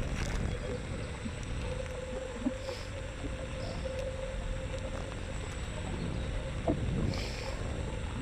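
Xiaomi M365 electric scooter's front hub motor whining at a steady pitch while riding, over a steady low rumble of wind and road noise.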